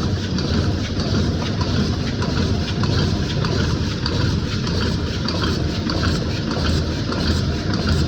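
Paper-cup factory machinery running, a steady low rumble with faint irregular ticking.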